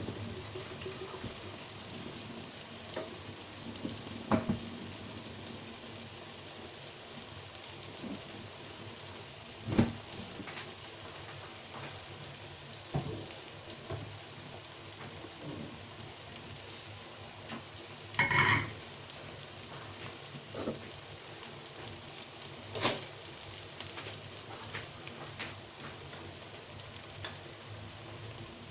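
Food frying in hot oil in a pot: a steady sizzle, broken by a few sharp knocks of a utensil against the pot, the loudest about two-thirds of the way through.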